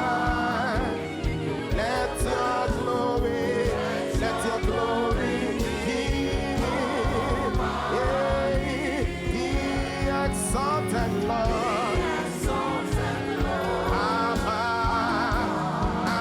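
Gospel worship music: voices singing long, wavering notes over a band with a steady low beat.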